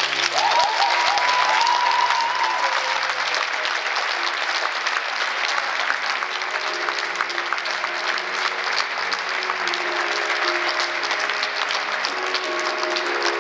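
Audience applauding at the end of a song, with a long, high held cheer in the first few seconds. Soft instrumental notes from the band sound under the applause later on.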